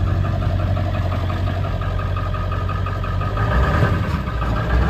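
Old truck's engine idling steadily, heard from inside the cab. A fast, even ticking rides over the low hum.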